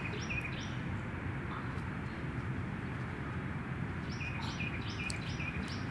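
A bird calling in quick series of repeated chirps, one run at the start and another from about four seconds in, over steady outdoor background noise.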